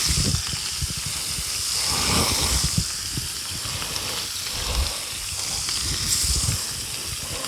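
Bacon strips frying in hot lard on a steel plow-disc griddle, a steady sizzle, with some low thuds underneath.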